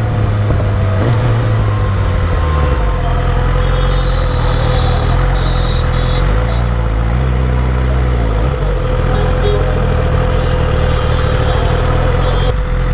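BMW S1000RR superbike's inline-four engine running at low speed in city traffic, its low note shifting a few times as the bike slows and pulls through gaps.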